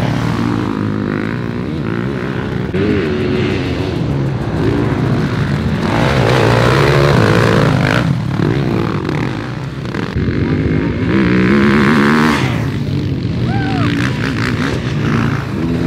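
Dirt bike engines running and revving, their pitch rising and falling.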